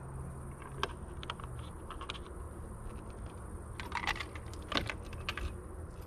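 Plastic flap and cap of a camper van's clean water filler being handled: a series of light plastic clicks and rattles, with the flap shut near the end.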